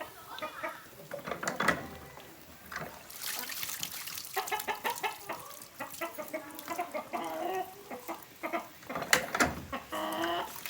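Chickens clucking, with a few sharp knocks and some splashing of water from a bowl being washed.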